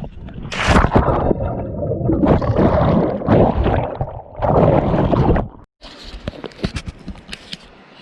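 A person jumping into deep water: a splash about half a second in, then churning, gurgling water for about five seconds, which cuts off abruptly. Quieter scattered clicks and rustles follow.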